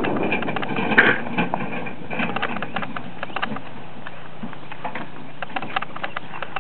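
Harness pony's hooves and a two-wheeled cart rolling over rough dirt ground: irregular clicks and crunches, with a louder knock about a second in.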